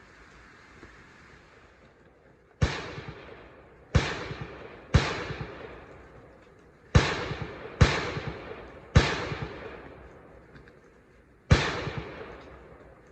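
Rifle firing seven shots over about nine seconds, some in quick pairs, each crack followed by a fading echo, as the shooter runs a double-tap drill.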